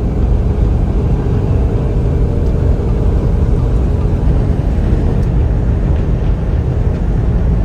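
Steady road and engine noise of a moving vehicle, a continuous low rumble without breaks.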